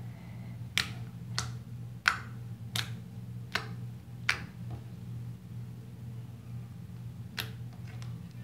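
Clear homemade slime pressed and poked with the fingertips, giving off sharp clicks: about six in the first four and a half seconds, one every two-thirds of a second or so, then two more near the end. This is the really clicky slime sound played for ASMR.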